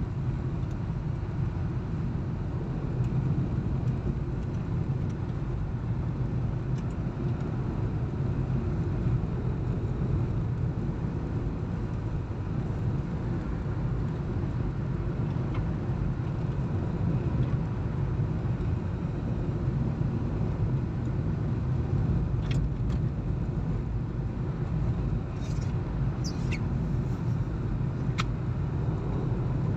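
Steady low rumble of a car driving on a snow-packed road, heard from inside the cabin: tyre and engine noise at an even cruising speed. A few short clicks come in toward the end.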